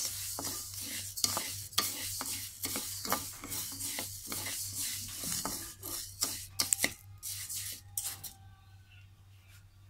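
A wooden spatula scrapes and stirs raw glutinous rice grains around a dry wok as the rice is roasted into khao khua. It makes a rasping, rattling stroke about twice a second, then a few sharper knocks, and stops about eight seconds in.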